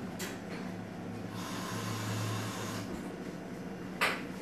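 Drip coffee maker brewing, a steady hum with a hiss that swells about halfway through, both cutting off suddenly about three seconds in. A brief sharp noise follows near the end.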